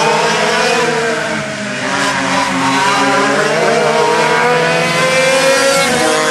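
Several racing go-kart engines, dual-reed two-strokes and a Wankel rotary, running hard together. Their pitches overlap and glide up and down, climbing for a second or so before dropping off near the end.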